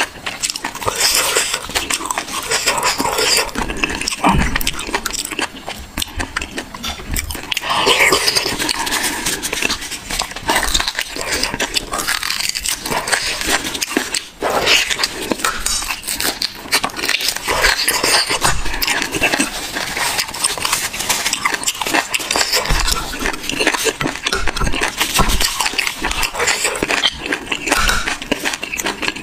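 Close-miked eating of sauced bone marrow: wet chewing, smacking and slurping, made up of many small crackly clicks.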